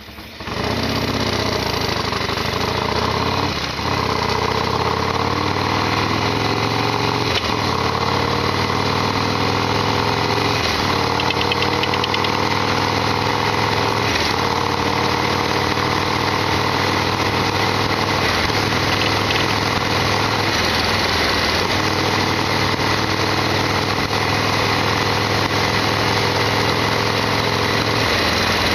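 Harley-Davidson Sportster XL1200R's air-cooled V-twin engine starting about half a second in, then running steadily at idle.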